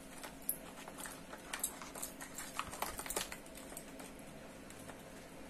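Light, irregular clicks and taps of fishing lures and tackle being handled and rummaged through by hand, most of them in the middle of the stretch.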